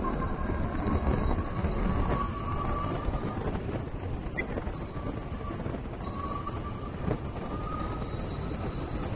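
Wind rushing over the microphone of a Juiced Scorpion X e-bike riding at speed, with the electric hub motor's faint steady whine above it.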